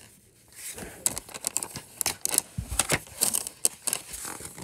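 Paper rustling and crinkling with many irregular clicks and knocks, from a paper cutout and book being handled right at the microphone; it starts about a second in.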